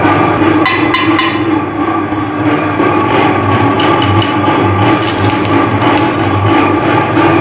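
Electric meat grinder's motor running with a steady hum. About four seconds in, hard-candy lollipops crack and clatter against the aluminium hopper and auger as they are crushed.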